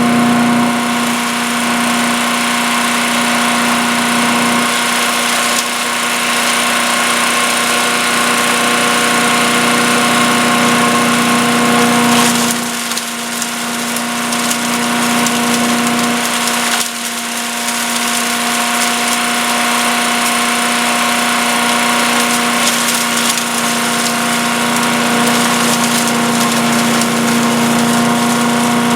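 An Earthquake 212 cc wood chipper-shredder runs steadily at speed on its single-cylinder four-stroke engine. Around the middle the sound drops a little for a few seconds, then comes back abruptly.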